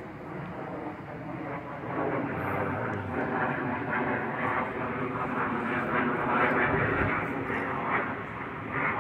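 Steady vehicle engine rumble with a hiss of wind or road noise, swelling about two seconds in and holding strong.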